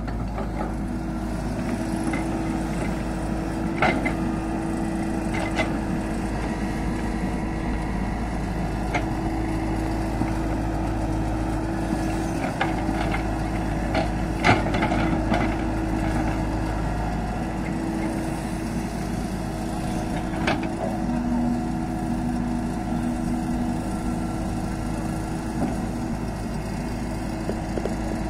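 Tata Hitachi hydraulic excavator's diesel engine running steadily under load while it digs and lifts wet mud, with a held hum. A few sharp knocks come through, the clearest about 4, 14 and 20 seconds in.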